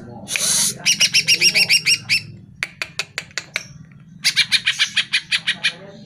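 Greater green leafbird (cucak ijo) singing. It opens with a short harsh rasp, then fast runs of repeated sharp whistled notes, about eight a second, broken in the middle by a few scattered single notes.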